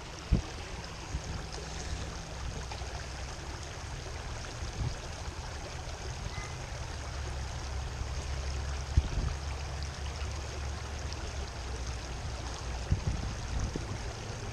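Shallow creek water running and babbling over rocks in a riffle, steady throughout, with a low rumble underneath. A few short knocks stand out, the loudest about nine seconds in.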